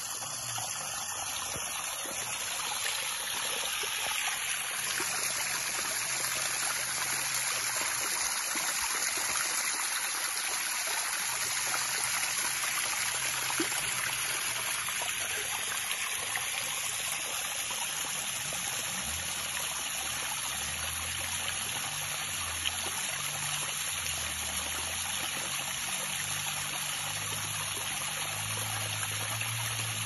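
Small creek running steadily over rocks, a continuous rushing and trickling of water.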